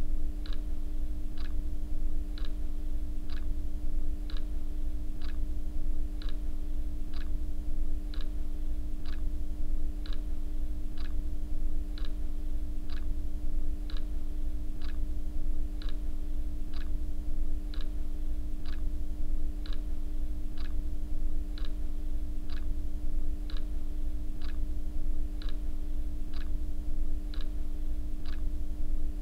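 A clock ticking steadily, about once a second, over a low steady hum.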